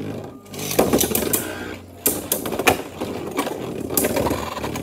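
Two Beyblade spinning tops whirring as they spin across a clear plastic stadium, with repeated sharp, irregular clacks as they collide.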